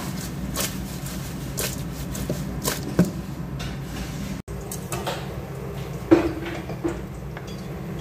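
Raw shrimp being tossed with salt and crushed black pepper in a stainless steel mixing bowl, sliding and knocking against the metal in several soft knocks over the first few seconds. After a brief dropout, a single sharp metal clink about six seconds in, all over a steady low hum.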